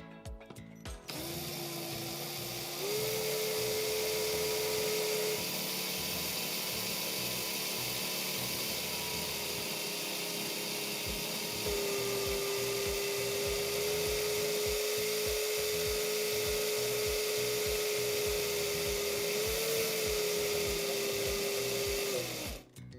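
Power drill running for about twenty seconds, spinning a rod in slime to make it climb the rod. Its whine steps up in pitch a few seconds in, drops around the middle, then winds down as it stops near the end. Background music with a steady beat plays under it.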